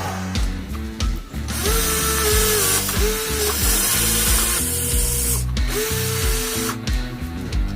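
Small electric gear motors of remote-control toy construction vehicles whining, starting and stopping about four times, each start rising briefly in pitch before holding steady, over background music.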